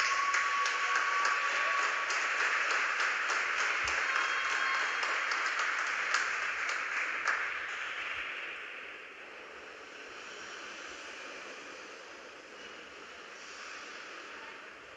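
A small audience clapping, a dense patter of claps that dies away about halfway through, leaving faint rink room noise.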